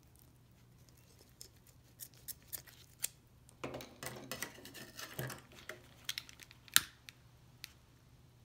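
Scissors snipping a few times at a chainsaw's nylon starter cord. The mechanic finds the scissors dull. Then a stretch of rustling as the cord is handled, and a few sharp clicks, the loudest one near the end.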